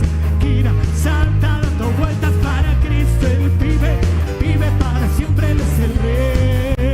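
Live worship band playing an instrumental passage of an upbeat tropical-style praise song, with a heavy bass line under a melodic lead.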